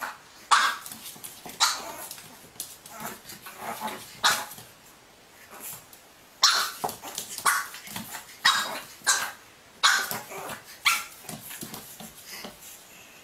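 A dog barking repeatedly in short, sharp barks, about ten of them at irregular intervals with brief pauses between.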